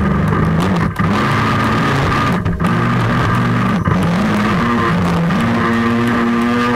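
Background music: a loud track with long held notes that step to a new pitch every second or so.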